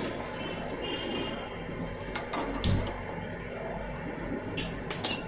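A spoon knocking and clinking against a steel bowl, four or five sharp clinks spread over a few seconds, over a low steady hum, while boiled potato is being mashed into the noodle mixture.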